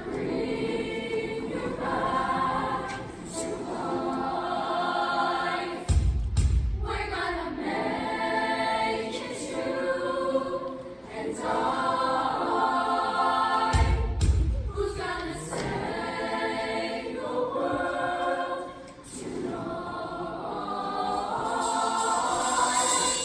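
Junior high choir singing in harmony, with a deep low swell about six seconds in and again about fourteen seconds in.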